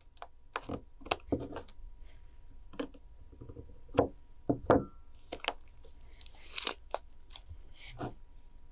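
Thick 3.5 mm craft wire being measured and cut with a wire cutter: scattered clicks and taps of wire and tools being handled, with two sharper snaps about four and five seconds in.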